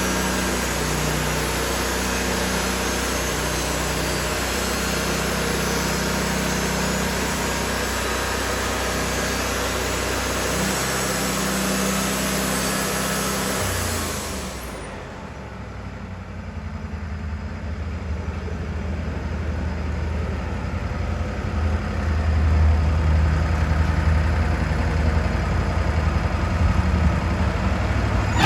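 Wood-Mizer LT40 portable band sawmill running: its engine hums steadily under a high hiss as the band blade cuts through a poplar log. About halfway the hiss stops suddenly and the engine runs on alone, getting louder toward the end.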